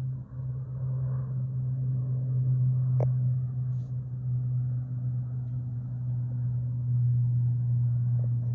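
Steady low drone of an aircraft's engines as the plane flies low overhead, with a single sharp click about three seconds in.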